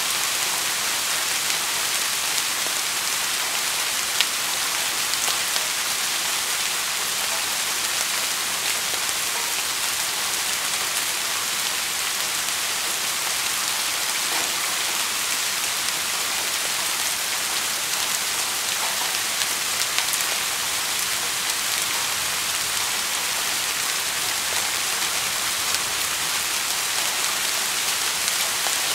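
Steady rain falling on a surface: an even hiss with an occasional sharper drop tick.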